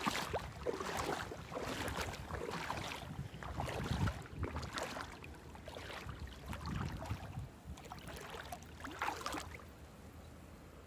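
Shallow bay water splashing and lapping in irregular bursts, with some wind on the microphone, growing fainter near the end.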